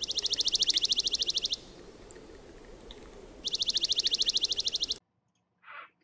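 Dark-eyed junco singing: two rapid, even, high trills, each about a second and a half long, with a pause between them. Near the end a harsh croak from a great blue heron begins.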